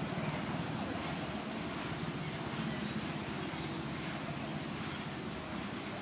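Steady high-pitched drone of insects, unbroken, over a low steady rumble.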